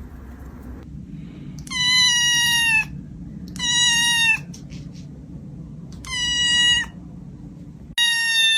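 Kitten meowing four times. Each meow is long and high-pitched, about a second, with the last one starting near the end.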